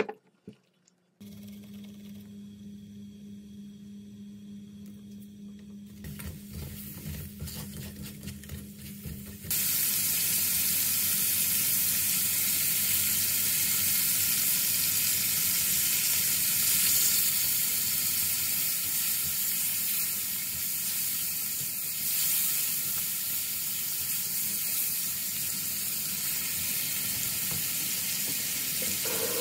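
Thin-sliced beef brisket frying in a nonstick wok and being stirred with a spatula and chopsticks: a loud, even sizzle that starts suddenly about a third of the way in and holds. Before it there is a low steady hum with some clattering.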